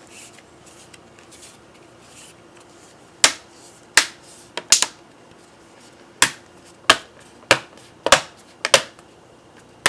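Plastic screen bezel of a Lenovo ThinkPad T430 laptop being pressed back on, its clips snapping into place one after another: about a dozen sharp clicks, unevenly spaced, starting about three seconds in, that sound kind of like bubble wrap.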